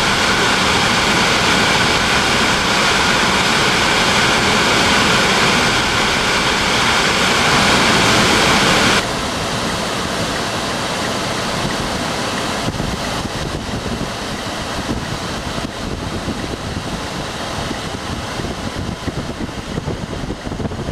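Steady rush of road and wind noise from a moving car, heard from inside. About nine seconds in it cuts to a quieter, more fluttering rush of wind.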